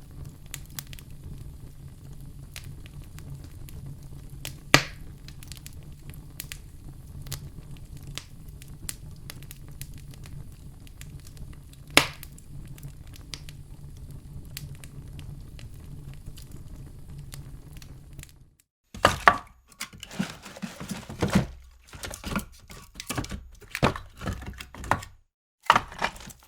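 Wood fire burning in a fireplace: a steady low rumble of flames with scattered crackles and two sharp, loud pops. About two-thirds of the way in it breaks off briefly and resumes as louder, irregular cracking and knocking with short silent gaps.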